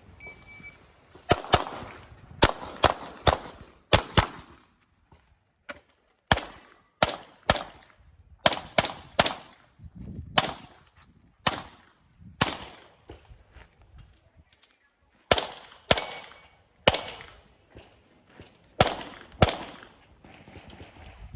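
Competition handgun fired in quick pairs and triples, about twenty shots in all, in bursts separated by short pauses, as an IPSC stage is shot. A shot timer's electronic start beep sounds just before the first shot.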